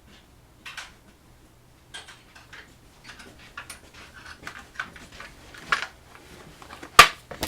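Small hard objects being handled: a string of light clicks and rattles like a padlock and small picking tools moved about on a work surface, ending in one sharp, loud click near the end.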